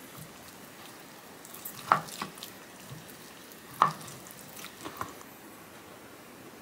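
Cleaver chopping luncheon meat on a plastic cutting board: about five sharp knocks of the blade striking the board, the two loudest about two seconds apart.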